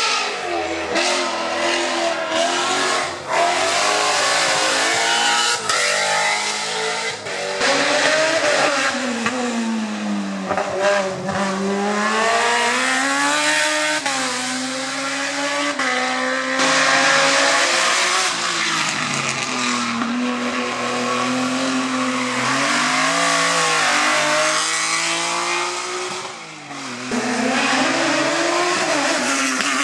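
Hill-climb race car engines revving hard through the gears, the pitch climbing and dropping again and again with the shifts and braking, with a brief dip in loudness near the end.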